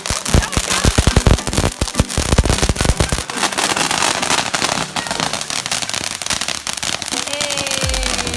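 A string of firecrackers going off in a rapid run of sharp pops for about three seconds, then a steady hiss of fireworks.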